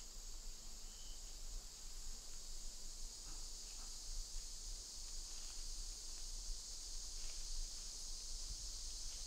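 Steady, high-pitched chorus of insects, with a low rumble underneath and a few faint, soft crackles.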